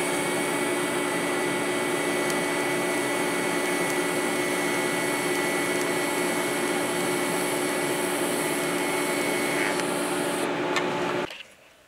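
TIG welding arc on a small steel body mount: a steady hissing buzz with a thin high whine, the whine ending when the arc is broken near the end and the remaining hiss cutting off a moment later.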